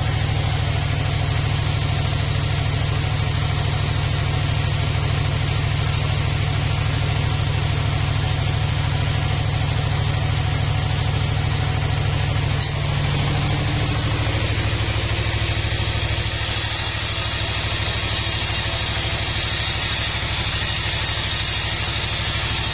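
Sawmill machinery running steadily with a low, even drone; about 13 seconds in the drone drops lower and a thinner, higher sound joins it a few seconds later.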